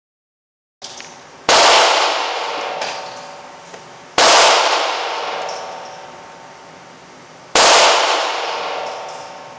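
Three shots from a Savage Mark II bolt-action .22 LR rifle, a few seconds apart, each followed by an echoing ring that dies away over about two seconds.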